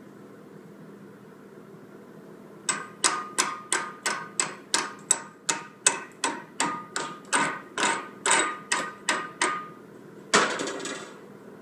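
Chipping hammer knocking slag off a freshly laid 7018 vertical-up fillet weld on steel plate: about twenty sharp metallic strikes, roughly three a second, with the steel ringing. A brief rough scraping burst follows near the end.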